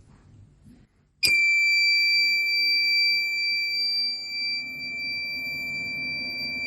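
Smart carbon monoxide detector's alarm buzzer sounding a steady, high-pitched tone that switches on suddenly about a second in, the sign that the system has detected CO above its set limit. A lower hum runs beneath it.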